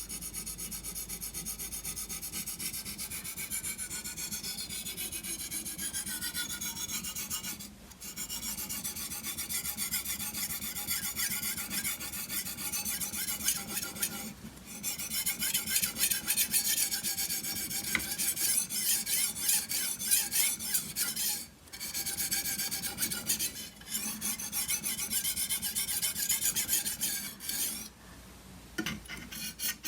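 Chef's knife blade being stroked rapidly back and forth on a dry Spyderco medium ceramic bench stone: a steady scraping rasp of steel on stone, broken by a few short pauses. The blade is being honed to a fine, hair-whittling edge at the medium stage of a stone progression.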